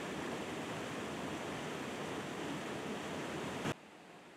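Steady rush of river water flowing over rocks. It cuts off abruptly near the end.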